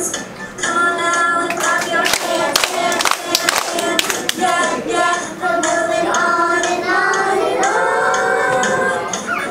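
A group of kindergarten children singing a song together, with a run of hand claps between about one and a half and four seconds in.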